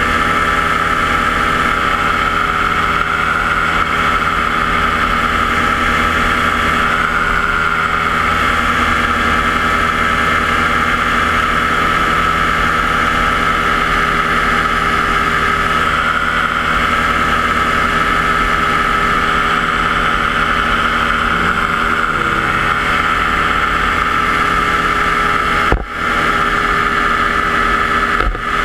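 Yamaha JR120 paramotor engine and propeller running steadily at cruising throttle in flight, one unchanging drone. The sound dips briefly twice near the end.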